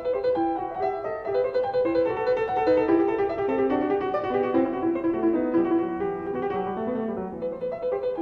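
Background piano music: a quick, repeating melodic figure played on a keyboard.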